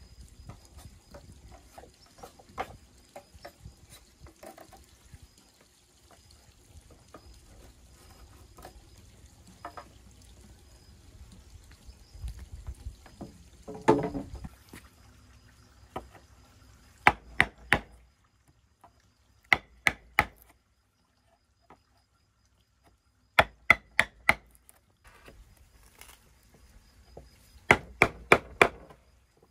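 Blade chopping bamboo: faint scattered knocks and handling at first, then four short runs of four to six quick, sharp strikes in the second half.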